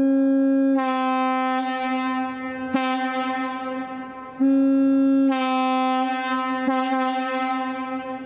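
A 1952 Nathan Airchime MS-1 single-chime locomotive air horn sounds one steady note. It is blown in two long blasts, each starting loud and tapering, the second about four seconds after the first. A sharp click comes near the middle and another near the end.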